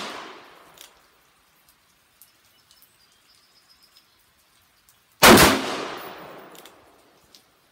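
Smith & Wesson 686 Pro Series .357 Magnum revolver firing a single shot about five seconds in, with a long echoing tail that dies away over about a second and a half; the tail of the previous shot fades at the start.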